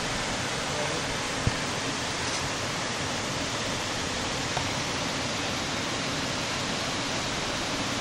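Steady rush of a waterfall, an even hiss with no breaks, with a single short click about a second and a half in.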